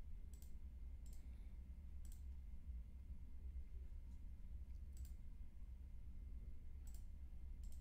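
Computer mouse clicks: about six single clicks, spaced a second or more apart, over a low steady hum.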